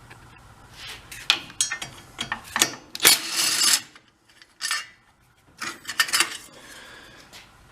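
Metal engine parts and tools clinking, knocking and scraping as a small four-stroke engine is taken apart by hand, with a louder scrape about three seconds in.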